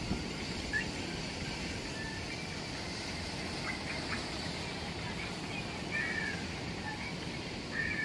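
Steady rush of breaking waves and moving water, with scattered short high bird chirps.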